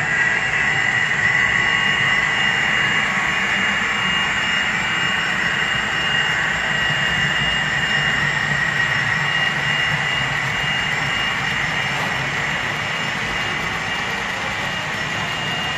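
Model freight train led by Santa Fe SD40-2 locomotives running past on the layout track: a steady rolling and motor whine with a high steady tone, easing off slightly as the train moves away.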